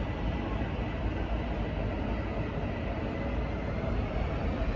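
V/Line N class diesel-electric locomotive running with a steady low rumble, no horn sounding.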